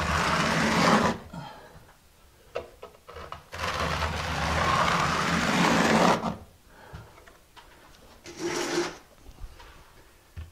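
Steel square-notch trowel scraping as it combs thin-set mortar across a backer-board ceiling, in three strokes: one ending about a second in, a longer one of two to three seconds in the middle, and a short one near the end.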